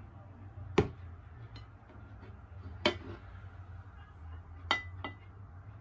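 Glass bowl and plates knocking down on a tabletop: four short clinks, the third ringing briefly.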